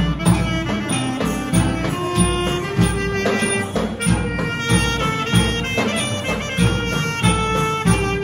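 Alto saxophone playing a slow melody in Thai old-style brass-band (trae wong) style, over band accompaniment with a steady drum beat.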